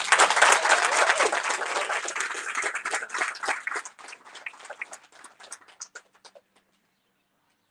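Small audience applauding with hand claps, loud at first, then thinning out and dying away about six and a half seconds in.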